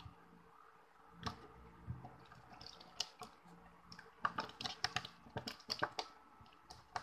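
Slime with a little water mixed in, stirred with a stick in a small metal tin: faint, irregular wet squishes and clicks, coming faster in the second half.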